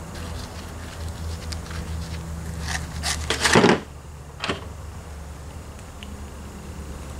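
Handling sounds of a pool-noodle foam float on a PVC pipe core being squeezed and set down on a tabletop: small clicks, then a louder rubbing noise lasting about a second, around three seconds in, and a short knock soon after. A steady low hum runs underneath.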